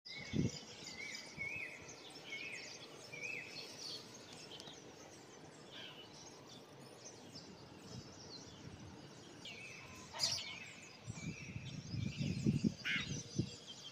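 Small birds chirping and calling outdoors, with short rising notes repeated several times early on and again about ten seconds in. A few soft low thumps near the end.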